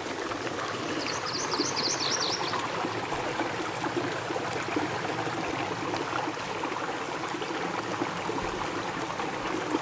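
Shallow creek running over a sandy, rocky bed: a steady rush and trickle of water. About a second in, a brief high twittering sounds over it for a second or so.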